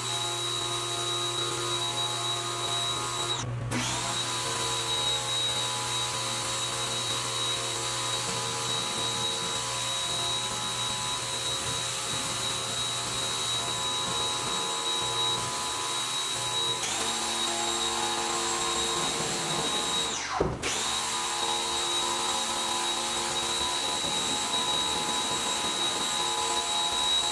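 Pressure washer running with a steady whine and the hiss of its water jet spraying a truck's body and wheel. The sound cuts out for a moment twice, a few seconds in and again about two-thirds of the way through, then starts again.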